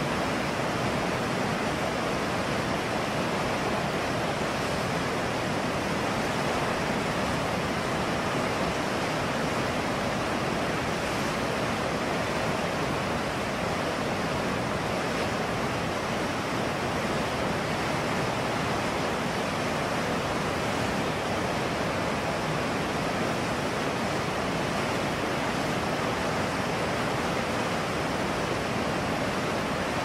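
Whitewater rapids rushing over rocks: a steady, unbroken rush of water.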